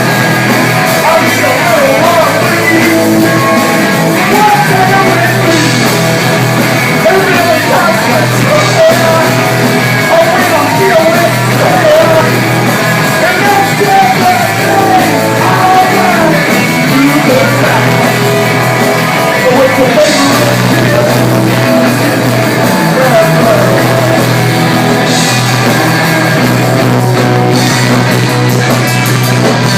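Punk rock band playing live: loud electric guitar-driven rock with bass and drums, running on without a break.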